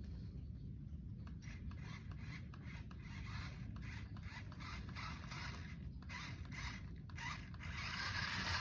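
Radio-controlled off-road 4x4 car driving over rough ground: a whirring gear train with scraping and crackling from the tyres, louder near the end.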